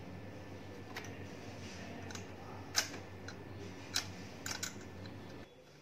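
Scattered light clicks and taps from hands handling the engine's wiring harness and plastic sensor connectors, over a faint low hum. The loudest click comes near the three-second mark, and there is a quick cluster of clicks after the fourth second.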